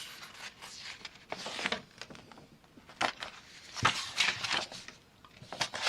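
Paper being handled and turned over: irregular soft rustles and light taps, heaviest a little past the middle.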